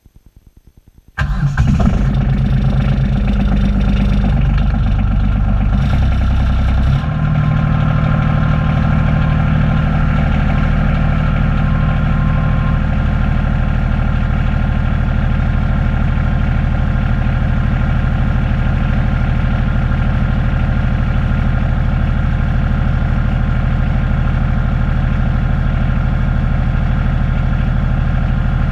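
Kubota B7610 compact tractor's three-cylinder diesel engine starting about a second in, heard from inside the cab. It runs unevenly for a few seconds, then settles into a steady idle about seven seconds in.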